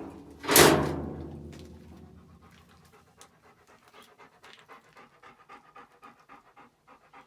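A loud sudden crash about half a second in that fades over a second or so, then a dog panting quickly and steadily, about four breaths a second.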